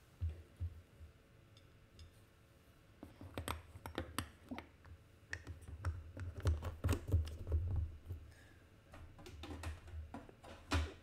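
Irregular light taps, clicks and soft knocks of a sketchbook and drawing things being handled on a desk, with low bumps underneath, busiest in the second half.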